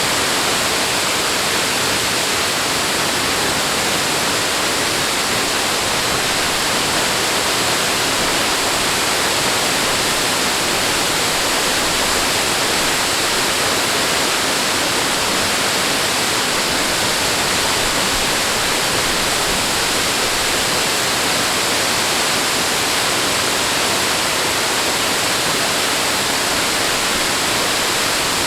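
Rushing water making a steady, unbroken roar of dense noise with no surges or pauses.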